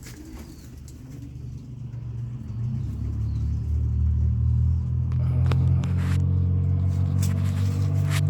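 A steady low mechanical drone, like an engine or motor running, that builds up over the first three seconds and then holds level, with a few sharp clicks in the second half.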